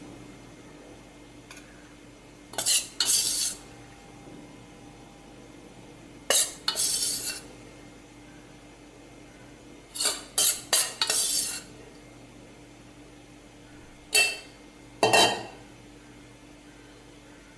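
Steel spoon scraping and clinking against a stainless steel bowl and a steel puttu tube in short bursts, about five times, as red rice flour is scooped and spooned into the tube.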